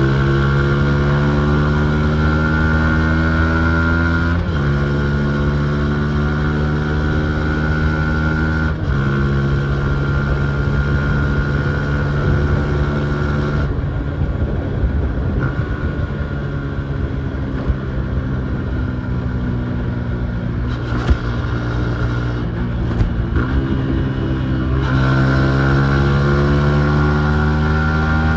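Yamaha MT-15's single-cylinder engine accelerating through the gears. Its note climbs and then drops at upshifts about four and nine seconds in, runs steadier and lower with the throttle eased through the middle, then climbs again near the end.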